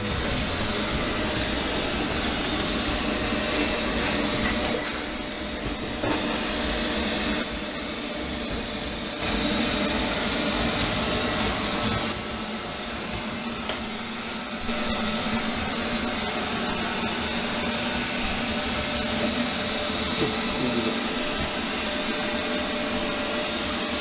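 Neato Robotics robot vacuum running on a tile floor: a steady whir of its suction motor and brush. The sound gets louder and softer in steps several times as it moves about.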